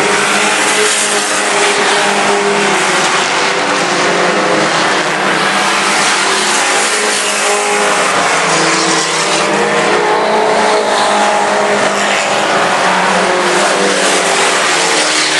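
A pack of mini-truck race engines running hard at racing speed, several at once, their pitches rising and falling as the trucks accelerate and back off through the laps.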